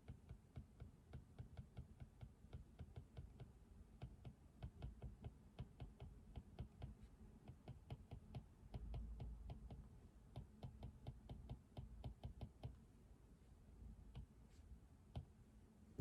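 Typing on a computer keyboard: a fast, uneven run of keystrokes that stops about three-quarters of the way through, leaving a few scattered clicks. A brief low rumble sounds near the middle.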